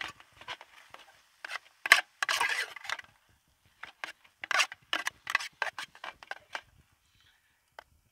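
A metal utensil stirring noodles in a metal mess tin: irregular clinks and scrapes of metal on metal, densest about two to three seconds in and again around five to six seconds.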